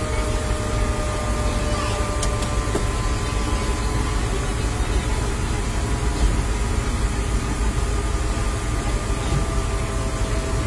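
Parked fire truck's engine running steadily: a continuous low rumble with a faint, even whine above it.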